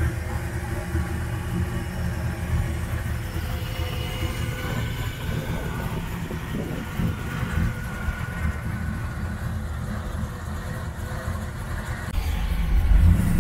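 Built LT4 5.7-litre small-block V8 of a 1997 Chevrolet Camaro SS idling with a steady, deep rumble. Near the end the sound jumps louder.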